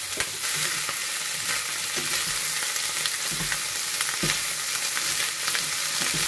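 Kale and other vegetables stir-frying in hot oil in a pan: a steady sizzle, with the stirring utensil knocking and scraping against the pan a few times.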